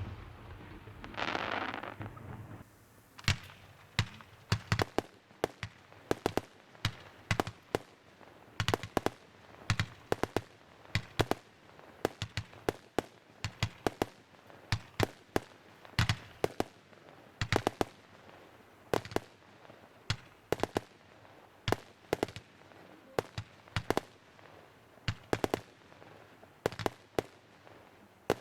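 Fireworks display: sharp bangs of aerial shells bursting, coming in quick clusters every second or two, with a brief hissing rush near the start.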